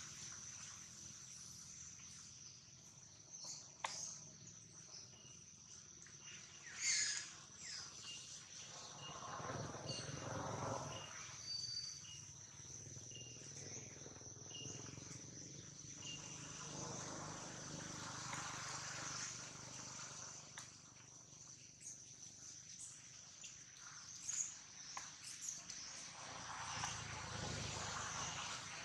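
Steady high-pitched drone of insects, with a short chirp repeating about once a second for several seconds in the first half. A few brief louder sounds stand out, the sharpest about seven seconds in.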